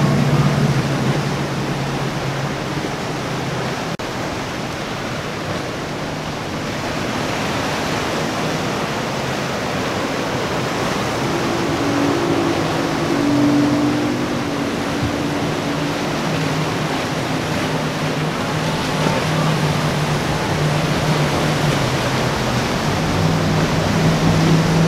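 Steady rush of breaking waves and boat wakes, with the hum of outboard motors underneath that grows stronger in the middle and again near the end.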